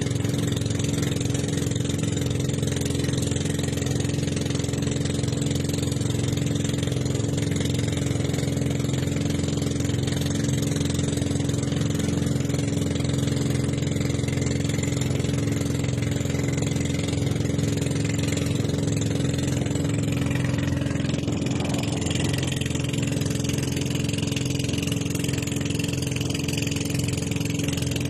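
Boat engine running steadily, heard from on board while under way, as a constant even drone.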